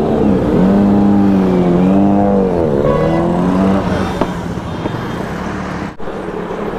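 Loud engine fitted with an Arrow aftermarket exhaust, blipped up and down several times in quick succession during the first four seconds, then running on more steadily and quieter.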